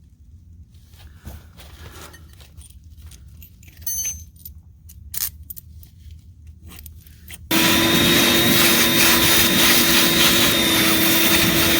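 Scattered knocks and handling clicks over a low hum. Then, about seven and a half seconds in, a Bauer electric hammer drill starts suddenly and runs steadily with a motor whine, boring into concrete with a solid carbide bit.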